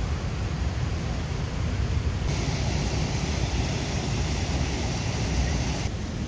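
Wind buffeting an outdoor microphone: a steady, fluttering low rumble, with a stretch of louder steady hiss from about two to six seconds in.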